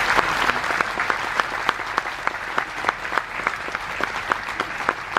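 Audience applauding, the dense applause thinning out into scattered individual claps as it dies down.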